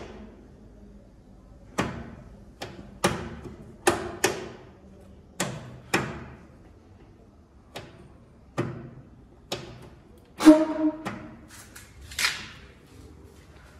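A series of irregular sharp knocks and thumps on a tractor's sheet-metal bodywork as the dead rear light is shaken, with one louder ringing metallic clank about ten and a half seconds in.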